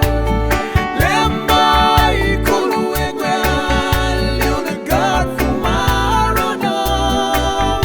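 Upbeat music with a singing voice over a steady bass beat and percussion.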